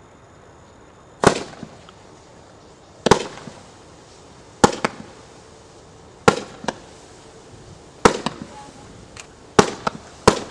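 Lesli S.W.A.T firework battery firing shot after shot into the sky: seven sharp bangs, the first a little over a second in and then one about every one and a half to two seconds, each followed by a few smaller crackles.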